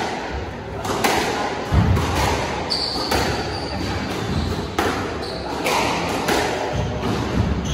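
Squash rally: the ball cracks off rackets and the court walls roughly once a second, each hit ringing briefly in the court, with low thuds in between.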